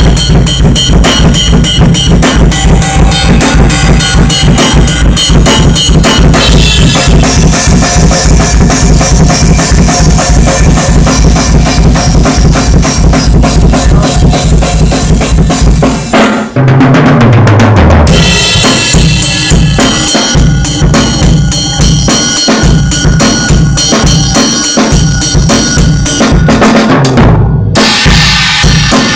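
Acoustic drum kit played loud in a fast metal style: rapid double-bass-drum kicks under snare hits and cymbals, with a brief break about halfway through.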